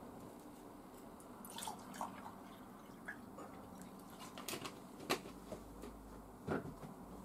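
Water poured from a plastic mineral-water bottle into a drinking glass, amid scattered clicks and knocks from handling the bottle, its cap and the glass; the sharpest knock comes about five seconds in.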